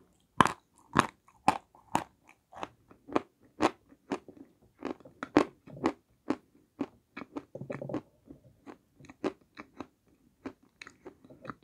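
Close-up crunching of a dry chunk of white edible chalk being bitten and chewed: a string of crisp, sharp crunches, about two a second at first, then quicker and more irregular.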